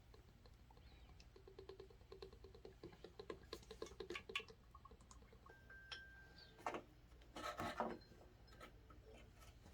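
Faint clicks, light scraping and rustling of parts being handled during assembly, with a brief squeak just before the middle and two louder rustles past the middle, over a low steady hum.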